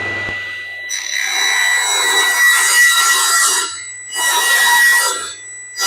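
Power saw ripping a timber board lengthwise to width: a steady blade whine under the rasp of the cut, loud in two long stretches with a short drop between them, and a third starting near the end.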